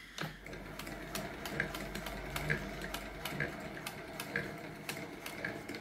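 Singer 201K Mark II sewing machine stitching at a slow, even pace, each stitch a sharp tick about twice a second over the steady run of the machine.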